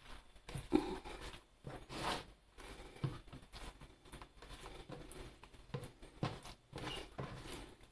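Hands rolling a filled brick pastry sheet on a wooden board: faint, irregular rustling of the pastry with soft taps of hands on the wood.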